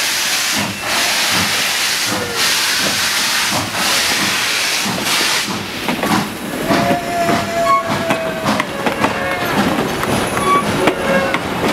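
Steam hissing heavily from the SP&S 700 steam locomotive, swelling and easing about once a second as it blows off steam. About halfway through the hiss eases. Passenger cars roll by with steady clicking over the rails and short squeals from the wheels, the longest lasting about a second.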